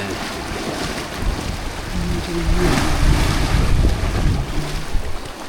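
Sea waves washing against shore rocks, with wind buffeting the microphone.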